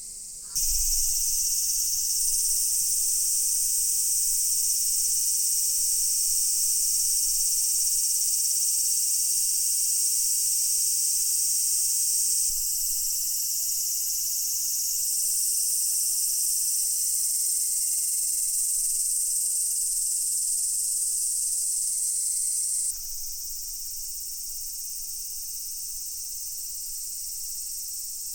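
Cicadas in a dense chorus, a steady high-pitched drone. It jumps sharply louder about half a second in, then drops back a little around the middle and more clearly near the end.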